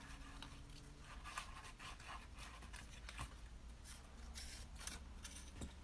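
Faint rustling and light scraping of paper being handled, a scatter of small irregular sounds over a low steady hum.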